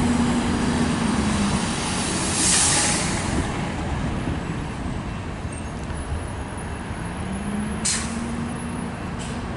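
City transit bus running close by with a steady engine drone, letting out a loud hiss of its air brakes about two and a half seconds in. Two shorter, sharper air hisses follow near the end as the engine drone rises again.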